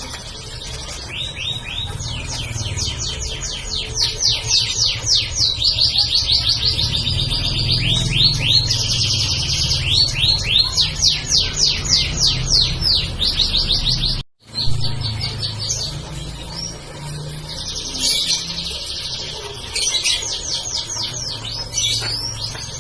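Domestic canary singing continuously in fast trills and rolls of rapidly repeated high notes, with a steady low hum beneath. The sound cuts out completely for an instant about 14 seconds in.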